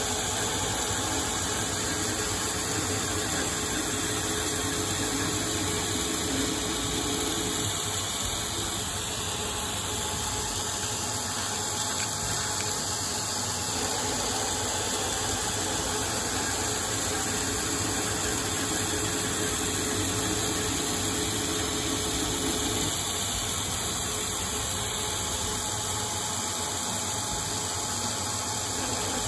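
Proto-Trak CNC lathe running a threading cycle, single-point cutting an ACME thread in 4140 heat-treated steel with small passes, under a steady hiss from the spray mist coolant. A faint hum comes in and drops out twice.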